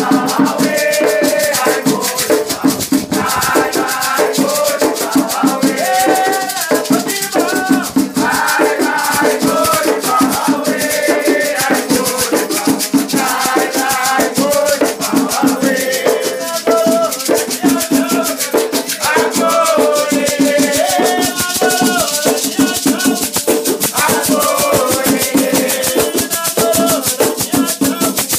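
Batuque ritual music: shakers rattling in a fast, even rhythm under voices singing a chant.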